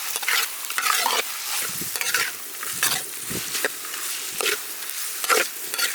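Food stir-frying in hot oil: a steady sizzle, with a spatula scraping and tossing it around the pan in repeated strokes about once or twice a second.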